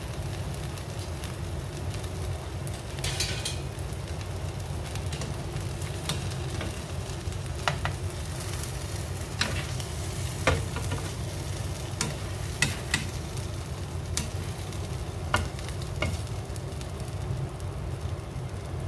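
Tortilla wraps sizzling lightly in a non-stick frying pan over a steady low hum, with scattered sharp taps and scrapes as a spatula turns and presses them against the pan.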